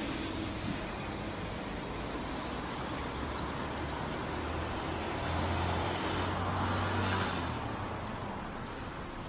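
Street traffic noise. A motor vehicle's engine hums close by, growing louder about five seconds in and fading again after about seven and a half seconds.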